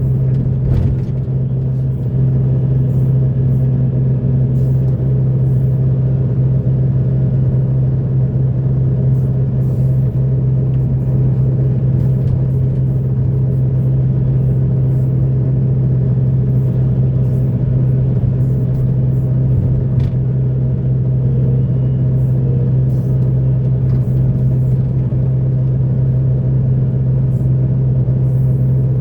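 Heavy diesel earthmoving machinery running steadily, a constant low engine drone with a few faint clicks and knocks over it.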